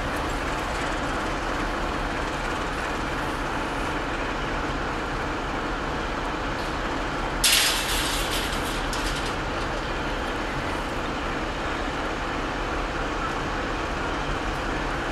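Romanian Electroputere LDE 2100 diesel-electric locomotive with its Sulzer diesel engine running steadily as it moves slowly through the station. About halfway through, a short burst of air hisses loudly for a second or two.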